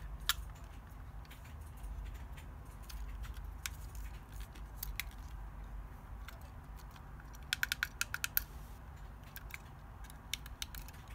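Small parts clicking and tapping as the screen assembly is handled and fitted into a CNC-machined case, with a quick run of about eight sharp clicks near the end.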